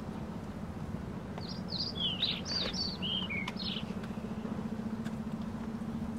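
A songbird sings one quick phrase of about ten high chirping notes, some slurring downward, lasting about two seconds from a second and a half in, over a steady low hum.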